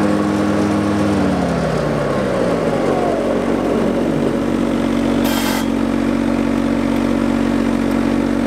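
Zero-turn riding lawn mower engine running steadily; about a second in its pitch drops over a second or so as it slows, then it runs on evenly at the lower speed. A brief hiss about five seconds in.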